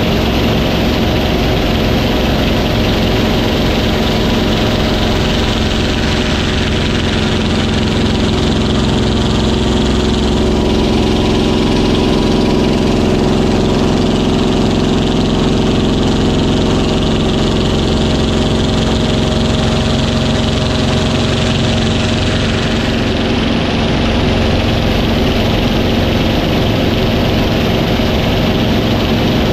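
Yak-3 warbird's piston engine running steadily, heard from inside the cockpit through an aerobatic roll: a dense, even engine drone at constant loudness.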